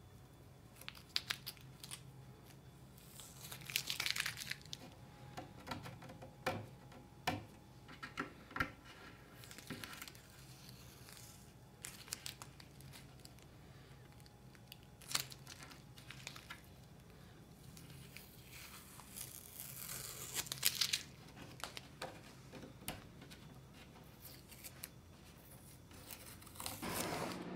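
Blue painter's tape being peeled off a wood surface and crumpled, in several short ripping pulls with small clicks and rustles between. The tape is masking coming off around a freshly shaped filler repair.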